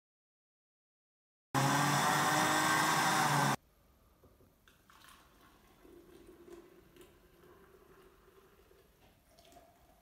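A loud, steady whirr for about two seconds, cut off suddenly, then plant milk poured from a blender jug into a plastic filter container: a soft trickle whose pitch rises near the end as the container fills.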